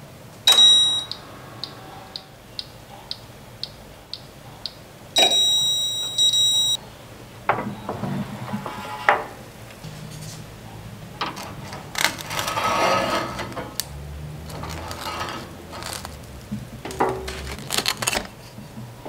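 BALMUDA The Toaster: a bell-like chime, then its timer ticking about twice a second, then a longer chime about five seconds in as the toasting ends. The door is then opened with clicks and rustles as the toast is handled, and near the end a knife scrapes butter across the toast.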